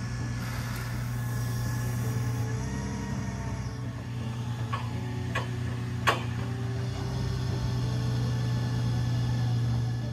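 Water well drilling rig's engine running steadily with a low hum, with a few sharp knocks a little after the middle.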